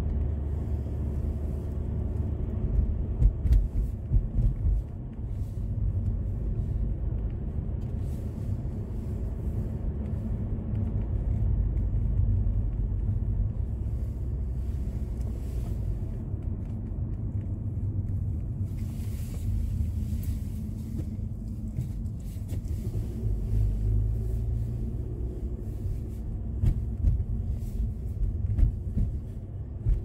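Car driving at low speed, heard from inside the cabin: a steady low rumble of engine and tyres on the road. A few short knocks come about three to four seconds in and again near the end.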